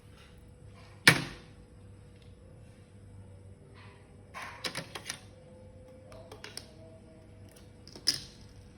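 Sharp clicks and knocks of hard plastic and small tools being handled while a laptop is reassembled: one loud knock about a second in, a quick cluster of lighter clicks around the middle, and another sharp knock near the end.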